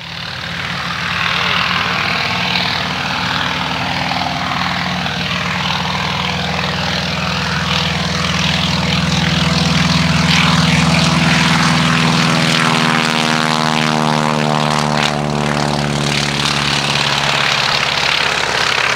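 Beech Staggerwing's radial engine and propeller at takeoff power as the biplane runs across the grass and lifts off. The sound builds over the first couple of seconds and then holds steady and loud. In the second half a sweeping, phasing tone runs through it as the aircraft passes and climbs away.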